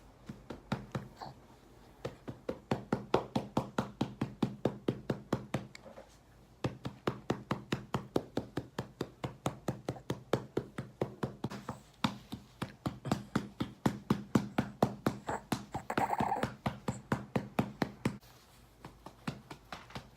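A hand patting a baby's back in a steady rhythm, about three pats a second, in runs broken by short pauses, to bring up a burp.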